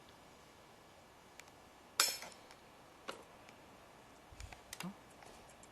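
A single sharp bang about two seconds in, with a short ring after it, followed by a few light metallic clicks and clinks.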